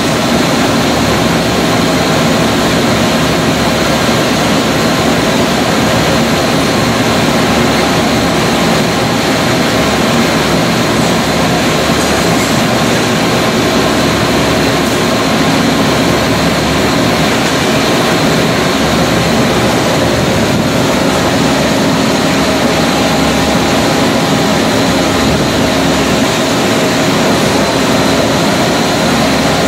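Steel coil processing line running: sheet steel unwinding from a coil and feeding through a cluster leveler, a loud steady mechanical drone with a faint steady high whine.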